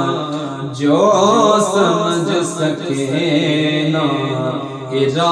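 Male voice chanting a Punjabi naat unaccompanied, in long, wavering melismatic lines with two short breaks between phrases, over a steady background drone.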